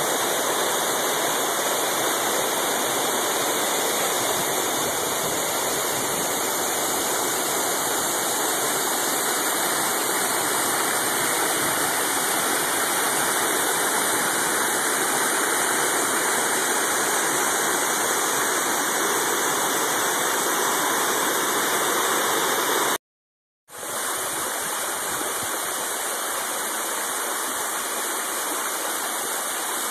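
Waterfall rushing steadily, an even wash of falling water. It cuts out for under a second near the end, then resumes a little quieter with less low rumble, as from a different fall.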